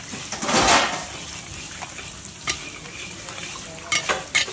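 Raw mutton liver and other offal pieces dropped by hand into a kadhai of hot masala, with a loud sizzle about half a second in and a steady frying hiss after it. A few sharp clicks come near the middle and the end.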